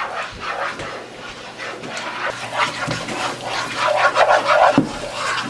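Spatula stirring and scraping a thick flour roux in a nonstick skillet: irregular scraping strokes, busiest in the second half.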